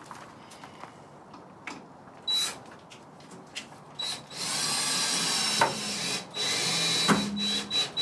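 Cordless drill driving screws back into a pickup's tailgate panel: a short burst of the motor, then about three and a half seconds of steady running with a thin high whine and a couple of brief stops. The drill's battery is running low and needs replacing.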